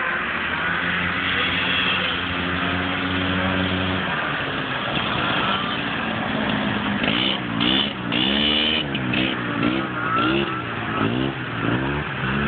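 Several vintage two-stroke snowmobile engines running as the sleds pass, holding a steady pitch at first, then revving up and down again and again from about halfway through.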